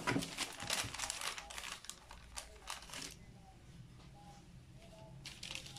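Baking parchment paper crinkling and crackling as it is handled under rolled-out dough, for about three seconds and again briefly near the end.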